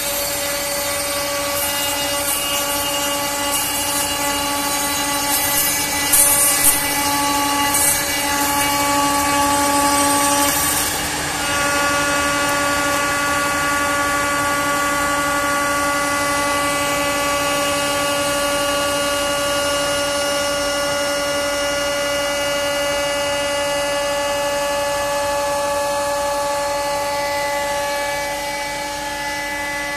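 CNC router spindle running with a steady whine while its profile bit mills the edge of a softwood door panel, the wood-cutting noise over it. The cutting is louder and rougher for a few seconds about six seconds in, then the tone shifts slightly and settles steady.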